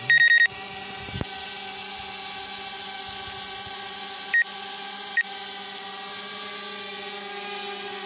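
Steady mechanical hum with several held pitches. A quick run of high electronic beeps comes at the start, and two single beeps follow about four and five seconds in.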